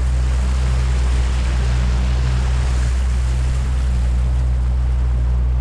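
A 60 hp outboard motor running at a steady speed, pushing an inflatable boat across open water: a constant low drone with a hiss of water and wind over it.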